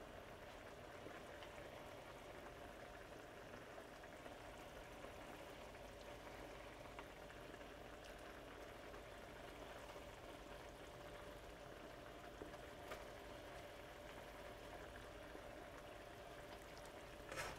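Faint bubbling of a Marsala wine and chicken broth sauce simmering in a skillet with chicken in it, with a light tick or two about twelve seconds in.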